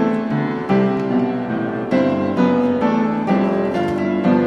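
Background music played on piano, a slow melody of held notes with new notes struck about every half second to a second.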